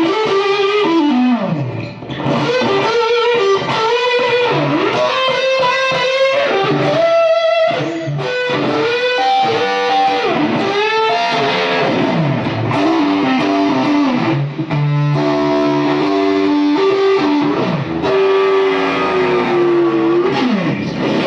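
Electric guitar, a 1967 Fender Stratocaster played through an original late-1960s Dallas Arbiter Fuzz Face into a Marshall JTM45, playing a distorted lead with many string bends and slides and some held notes.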